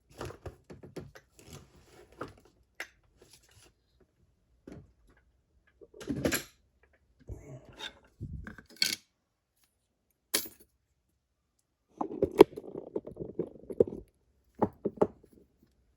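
Scattered small metallic clicks, taps and knocks from a padlock, keys and small tools being handled, with a denser rattling clatter lasting about two seconds near the end.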